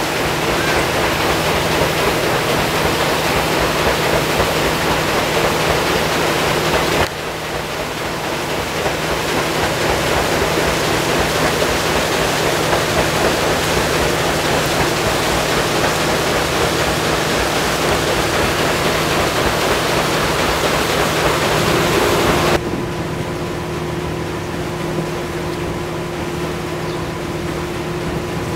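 Paddle boat under way: a steady, loud rushing noise with a low, even hum from the boat's machinery beneath it. The sound changes abruptly about seven seconds in and again near the end, where it turns quieter and a steady higher tone comes through.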